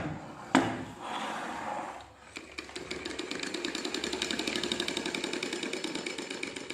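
Old sewing machine, its shuttle freshly cleaned and oiled, running fast with a rapid, even clatter that starts about two seconds in and runs easy and smooth. Two sharp knocks come just before it.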